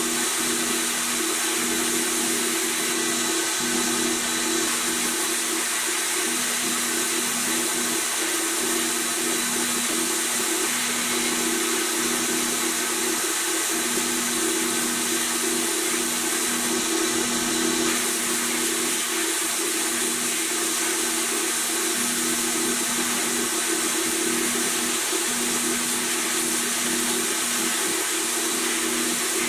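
Abrasive blast gun in a blast cabinet hissing steadily as it strips paint and rust from a pressed-steel toy truck cab, with a steady low hum underneath.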